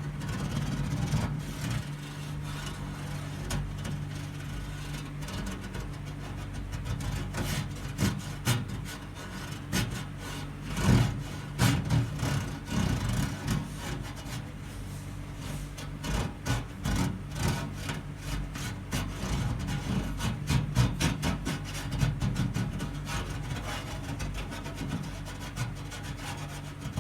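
PC case giving a rough, irregular scraping and rattling over a steady low hum, a noise like an old car cranking to start. The scraping comes in uneven bursts, busiest about a third of the way in and again past the middle.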